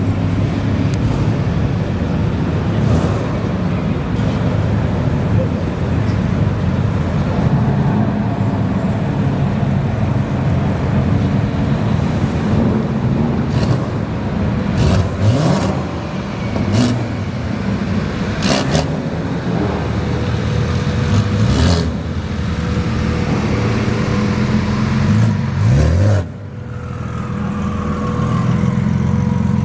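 Custom cars' engines running and revving as they drive off one after another, the revs climbing sharply a few times, about halfway through and again near the end.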